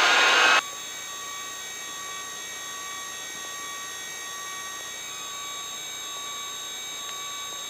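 Eurocopter EC135 with one turbine engine running after start and the rotor turning: a steady turbine whine with several fixed high tones. A loud rush of noise cuts off suddenly about half a second in.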